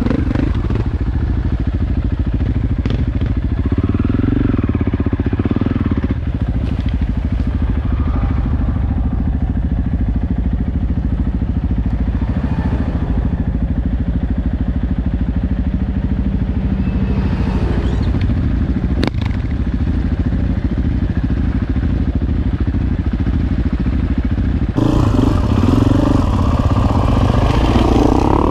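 Four-stroke single-cylinder KTM EXC enduro motorcycles riding along a dirt trail at moderate throttle, the engine running with a steady pulsing beat. There is one sharp click about two-thirds of the way in. About three seconds before the end the engine becomes louder and fuller.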